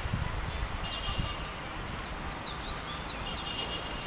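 Birds chirping in quick rising and falling calls over a steady high-pitched insect trill, with an uneven low rumble underneath.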